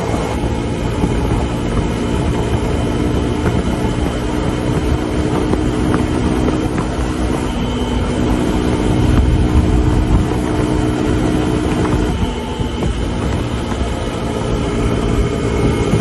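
Suzuki DR150's single-cylinder four-stroke engine running steadily at high speed under load, with wind and road noise. The engine note drops away briefly about twelve seconds in and picks up again near the end.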